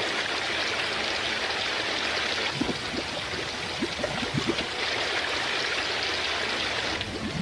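Steady rushing water, like a stream or waterfall, with short bubbling gurgles joining about two and a half seconds in.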